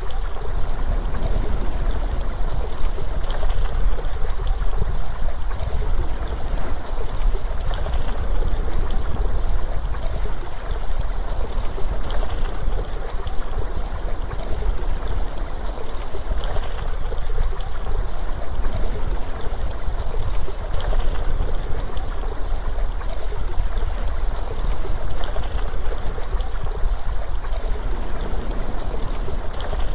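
Steady ambience of rushing, flowing water with a deep low rumble underneath, unchanging throughout.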